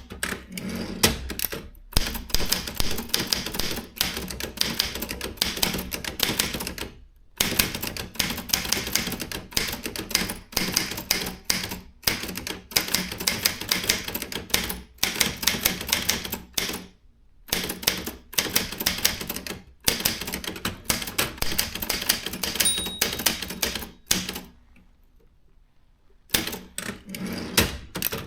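Consul 1502 typewriter being typed on: rapid runs of keystrokes clacking against the paper, broken by short pauses. A brief ring sounds about 23 seconds in, followed by a short quiet gap before the typing resumes.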